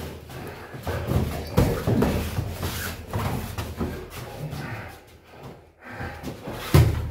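Irregular dull thuds of heavyweight sparring: boxing gloves landing and feet stamping on the ring floor. The loudest thud comes near the end.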